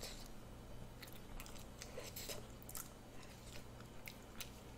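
Faint chewing of a soft steamed dumpling: scattered small wet mouth clicks, roughly one every second or so, over a low steady hum.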